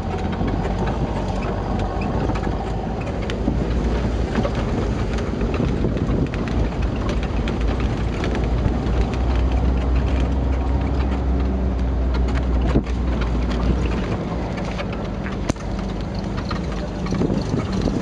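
Engine of an open-topped off-road vehicle running while it drives over a bumpy dirt track, with a steady low drone that is heaviest about halfway through. The body and load jolt and rattle, with a couple of sharp knocks in the second half.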